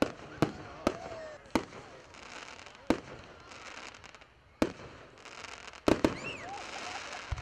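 Aerial firework shells bursting: about eight sharp bangs at uneven intervals, including a quick double bang about six seconds in, with crackling between them.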